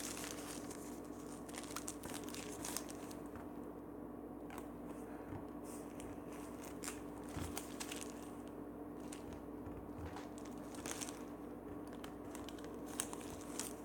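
Faint crinkling and rustling of hands handling something, with scattered small clicks over a steady low hum.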